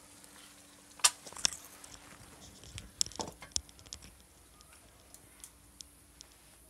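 A few sharp knocks and clatters, loudest about a second in and again around three seconds in, then lighter ticks: a small copper frying pan (sahan) being lifted off a wood fire and carried.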